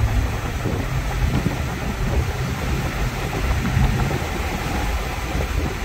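Supercharged 4.2-litre V8 of a 2006 Jaguar XKR cruising at a steady speed: a low, even engine hum under a haze of road and wind noise.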